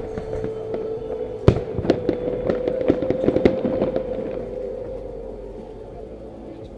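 Fireworks bursting in the air: a string of sharp bangs and crackles, the loudest about a second and a half in and a dense crackling cluster around three seconds, dying away over the last two seconds. A steady held tone sounds underneath the bangs and fades out with them.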